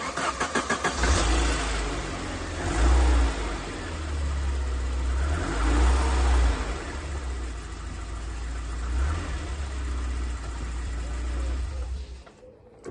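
Saab engine cranked briefly on the starter, catching and running, revved up a few times, then switched off near the end. It is starting again now that its broken crankshaft Hall sensor has been replaced and correctly wired.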